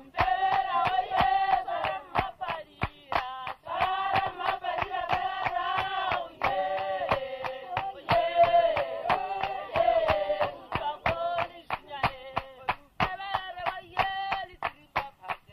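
A group of voices singing with rhythmic hand clapping, held notes changing every second or so.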